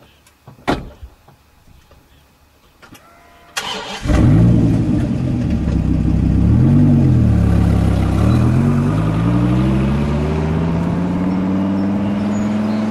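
Dodge Viper V10 engine being started: a couple of clicks, then the starter cranks and the engine catches loudly about four seconds in. It is blipped twice, then revs rising steadily in pitch as it accelerates.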